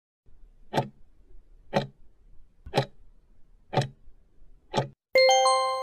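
Countdown-timer sound effect: five clock ticks, one a second, then a bell-like chime ringing out near the end as the answer time runs out.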